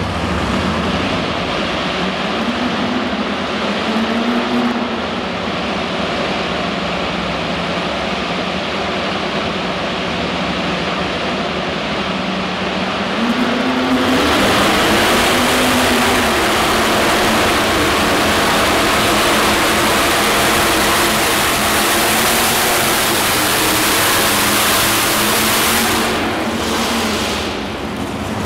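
Supercharged V8 of a modified pulling tractor being revved in short blips, its pitch rising and falling. About halfway in it jumps to a much louder, sustained high-rpm run that holds for about twelve seconds, then eases off near the end.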